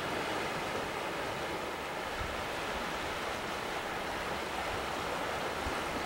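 Sea waves washing over shoreline rocks: a steady surf hiss, with a couple of brief low wind bumps on the microphone.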